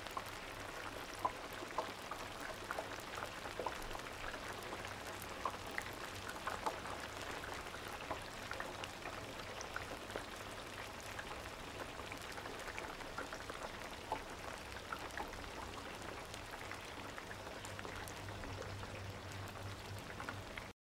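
Hot oil in a deep fryer bubbling and sizzling steadily, with many small crackling pops, cutting off abruptly at the end.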